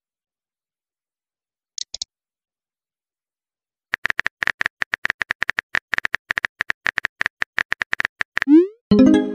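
Phone keyboard typing sound effect: a rapid run of short clicks for about four seconds. Near the end comes a short rising swoosh and a tone, the message-sent sound.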